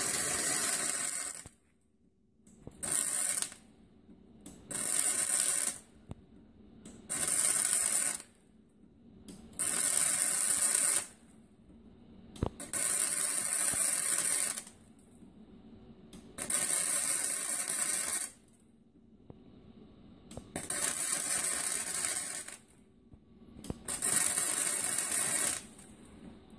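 MIG welding arc crackling in short bursts, about nine runs of one to two seconds each with short pauses between, as a crack in a 1927 Model T's steel frame is stitch-welded.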